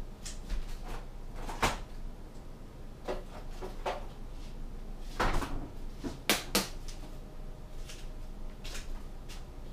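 Kitchen rummaging: a kitchen door being opened and shut and things being moved while a condiment is fetched. It is heard as scattered knocks and clunks, the loudest a few about five to seven seconds in.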